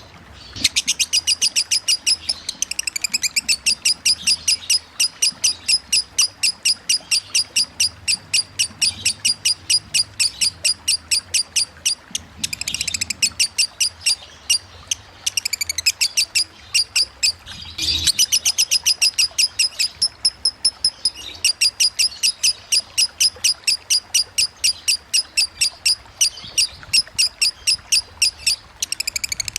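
Lovebird's long, rapid chattering song (ngekek): a fast run of sharp, high chirps, several a second, going on almost without pause and breaking off only briefly a few times.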